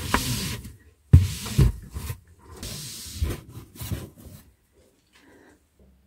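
Fabric storage bins being handled and slid on a shelf, making rubbing and scraping sounds in several bursts over about four seconds.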